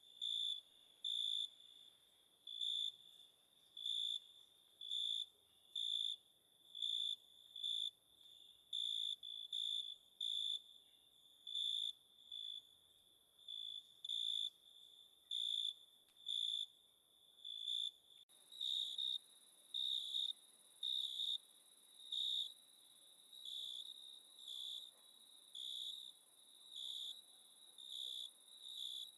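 Cricket chirping at night: short, high-pitched chirps repeated evenly, about one and a half a second. About two-thirds of the way through, the chirps shift slightly higher in pitch.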